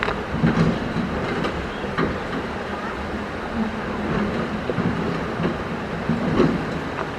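Caterpillar 320 hydraulic excavator's diesel engine running steadily under work, with scattered knocks and clatter of stone being handled.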